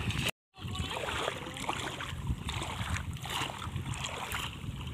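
Shallow river water splashing and sloshing around wading legs and a net being dragged through it, with wind rumbling on the microphone. The sound drops out completely for a moment shortly after the start.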